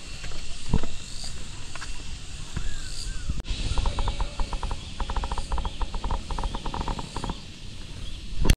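An animal calling in a rapid rattle of about ten pulses a second, lasting nearly four seconds, over a faint steady high tone and low rumbling noise. A sharp click, the loudest sound, comes just before the end.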